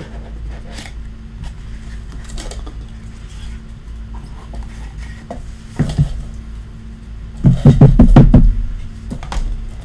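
Hands handling a small cardboard trading-card box and the cards inside in hard plastic holders, with soft rustling and clicking over a steady low hum. There is a single knock about six seconds in and a short cluster of loud knocks and thumps about seven and a half seconds in, as the box and cards meet the table.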